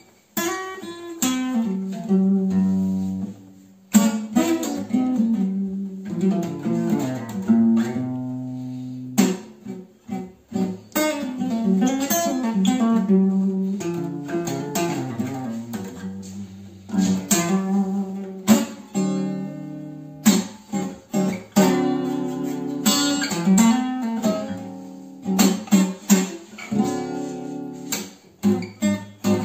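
Steel-string acoustic guitar played solo, a blues improvisation of single-note lines with string bends, mixed with strummed chords.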